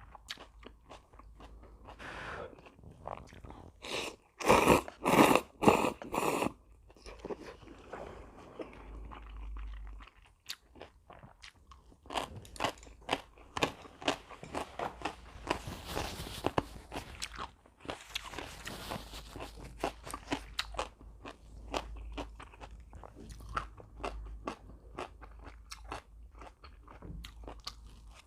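Close-miked mukbang eating: a person biting into and chewing crispy Korean fried food (twigim), with four loud crunches about four to six seconds in, then steady crackly chewing.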